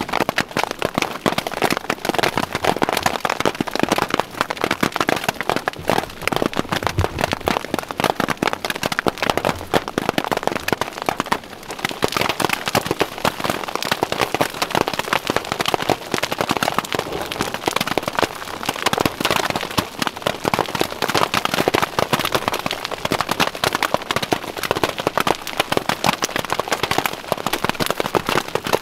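Large hailstones hitting a tarp shelter and the ground around it: a dense, continuous rattle of many small impacts.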